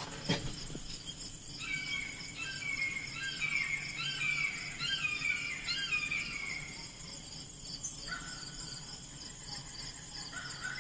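Outdoor insects trilling steadily. A bird sings a run of short falling whistled notes from about two to seven seconds in.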